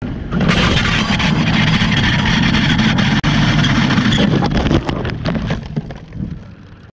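Wind rush and engine of a BMW S1000RR inline-four at speed, picked up by a bike-mounted GoPro, with heavy wind on the microphone. About four and a half seconds in comes a quick run of knocks and scrapes as the bike crashes, and then the noise dies away.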